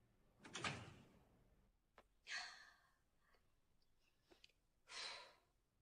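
A person's soft breathy sighs, three of them about two seconds apart, against near silence.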